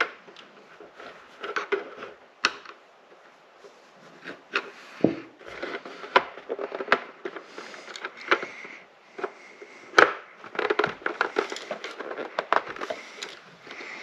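Plastic end cap and housing of an LED tube light being handled and pushed back together: scattered clicks, taps and plastic scraping, with a sharp click about two and a half seconds in and a louder one about ten seconds in.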